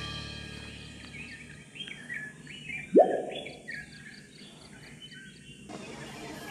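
Wild birds chirping, a run of short, quickly repeated high chirps over a steady faint hiss. About three seconds in comes one sudden, louder upward-sweeping sound.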